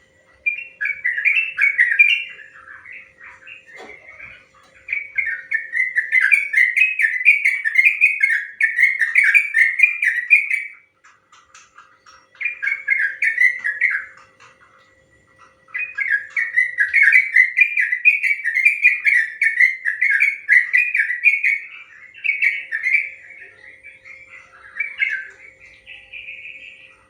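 Yellow-vented bulbul (trucukan) singing its long rapid-fire song in bubbly chattering runs of quick notes. There are four runs, the last lasting about ten seconds, with short pauses between them. A faint steady hum sits underneath.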